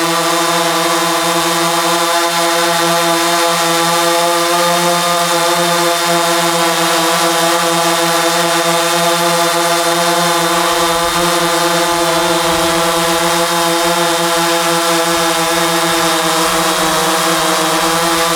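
DJI Phantom 3 Pro quadcopter hovering, its four motors and carbon fibre reinforced propellers giving a loud, steady buzzing hum at an even pitch.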